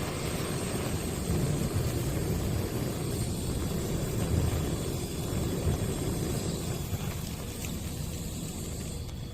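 Handheld gas torch flame burning with a steady rushing noise, strongest in the low range; the higher hiss drops away near the end as the flame is shut off.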